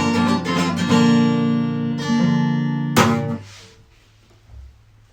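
Acoustic guitar strumming the closing chords of a song. A sharp final strum about three seconds in is damped within half a second. Only faint noise follows, with a soft low thump near the end.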